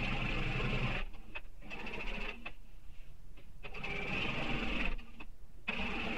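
Domestic sewing machine stitching a long basting stitch, running in short stretches with brief stops about a second in, in the middle and near the end as the fabric is guided.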